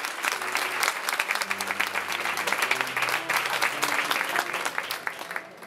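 Crowd applauding with dense, even clapping that fades out near the end.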